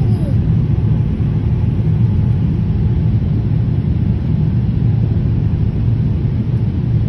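Steady low rumble of cabin noise inside a Boeing 787-8 airliner during its descent: engine and airflow noise heard from a window seat.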